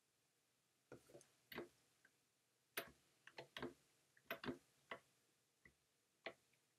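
Faint, irregular clicking of a computer mouse and keyboard, about fifteen sharp clicks, some in quick pairs, starting about a second in.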